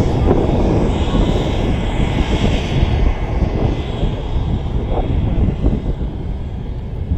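Aircraft engine running loudly: a steady, rough rumble with a faint high whine over it, easing off slightly in the second half.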